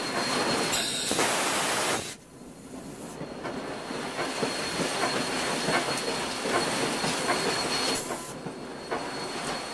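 Railroad cars rolling along the track, with a thin steady wheel squeal over the rumble and regular clicking of wheels over rail joints. The noise drops sharply about two seconds in, then builds back up.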